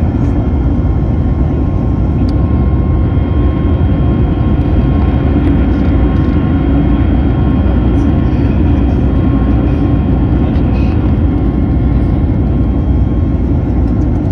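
Steady cabin roar of an Airbus A321neo climbing out after takeoff, heard from a window seat over the wing: a deep, even rush of engine and air noise with a few thin, steady high tones from the turbofan engines.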